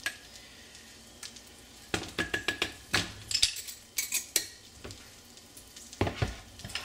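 Melted butter and flour sizzling faintly in a stainless steel saucepan as a roux is started, while a metal whisk clinks against the pan several times. A duller knock comes near the end.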